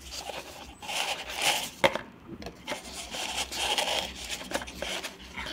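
Paper napkins rustling and crumpling as they are pressed into a thin plastic cup, in uneven bursts, with one sharp click a little under two seconds in.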